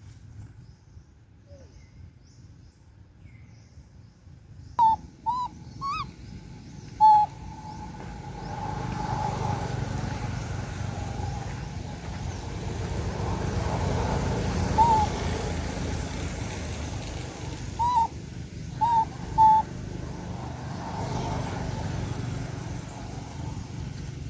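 Short, high-pitched animal squeaks in small clusters of two or three, about eight in all, over a low rumble that grows louder about a third of the way in.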